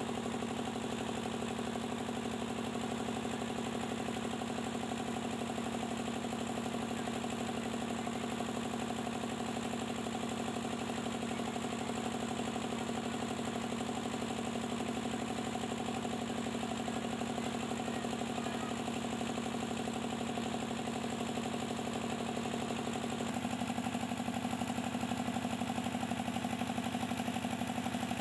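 Small stationary engine mounted on a wheeled cart, running steadily at constant speed. Its sound changes slightly and grows a little louder about 23 seconds in.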